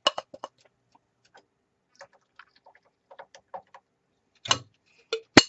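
Light, irregular clicks and taps of a utensil against a cooking pot while stirring flour-thickened gravy, with two sharper knocks near the end.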